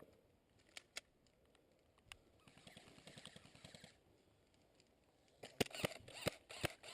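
A few isolated sharp clicks, then a quick, irregular run of loud snaps in the last second and a half.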